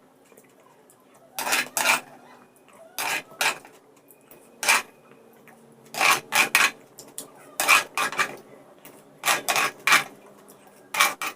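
Close-miked eating at a meal: clusters of short clicks and clinks of a plate and cutlery, recurring about every one and a half seconds.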